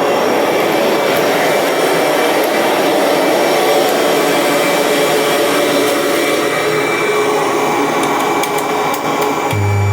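A 1994 Kirby Generation 4 upright vacuum running steadily, its motor and airflow making an even, continuous noise. A steady low hum joins in near the end.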